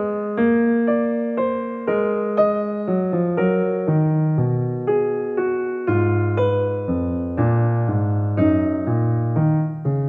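Background piano music: a slow melody of struck notes, each ringing and fading, changing about every half second, with deeper bass notes joining about six seconds in.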